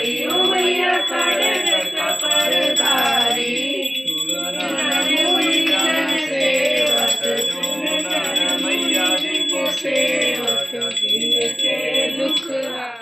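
Hindu devotional aarti song: a voice singing over musical accompaniment.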